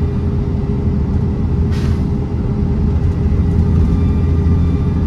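Dennis Trident double-decker bus's diesel engine running steadily under way, heard from inside the bus, with faint high whistling tones over the low drone. About two seconds in comes one short hiss of released compressed air from the bus's air system.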